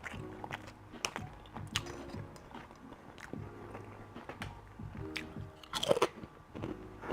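Close-up mouth sounds of a person chewing and biting breakfast food, with irregular wet clicks and crunches and a louder bite about six seconds in.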